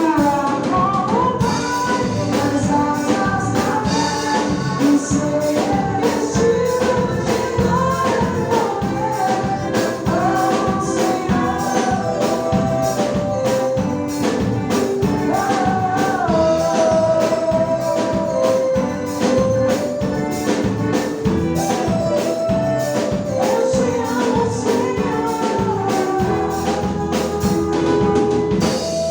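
Live band music with singing, a melodic vocal line over steady drums and tambourine.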